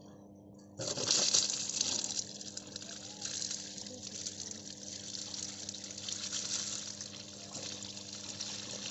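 Liquid gushing from a pipe into the open tap-changer compartment of a power transformer, frothing as the compartment fills. The flow starts suddenly about a second in, then carries on as a steady splashing hiss over a faint steady hum.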